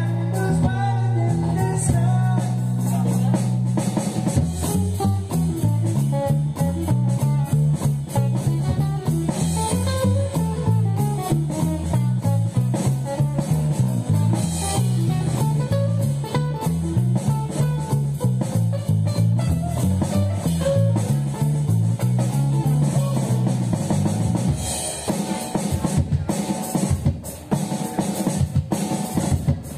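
Live band playing an instrumental passage: a bass guitar line stepping up and down over drum kit and guitar, with no singing. Near the end the music thins briefly, then the drums come back in.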